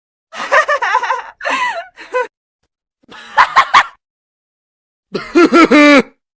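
Three short vocal sound-effect clips of a person's exclamations, each cut off into silence; the last is a longer held cry.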